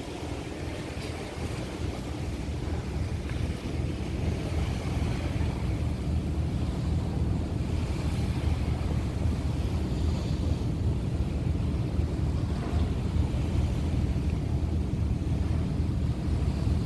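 Ferry under way: the steady low rumble of its engines, with wind on the microphone and water rushing past the hull, growing a little louder over the first few seconds.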